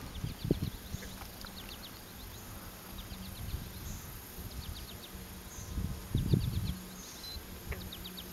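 Insects chirping in short, rapid runs of several high pulses, repeating about once a second. A few low knocks and rustles from handling in an aluminum boat come through, loudest past the middle.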